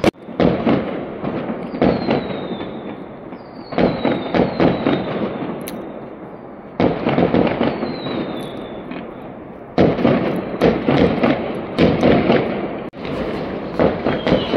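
Fireworks going off in volleys: a burst of sharp bangs and crackling about every three seconds, each dying away before the next, with high falling whistles among them.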